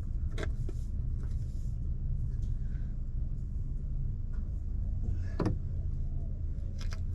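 Steady low rumble of a car, heard from inside it, with a few sharp clicks and knocks, the loudest about five and a half seconds in.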